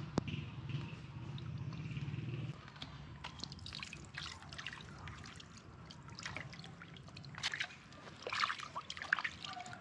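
Water poured from a plastic jug into an aluminium pot of raw fish, trickling and splashing as the fish is washed by hand. A low steady hum underneath stops about two and a half seconds in.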